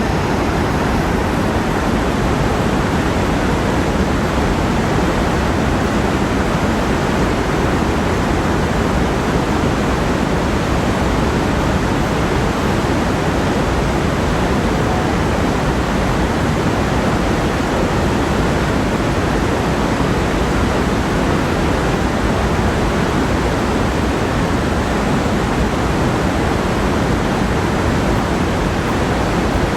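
Loud, steady rushing of the Iguaçu Falls, a massive waterfall, its water pouring without let-up.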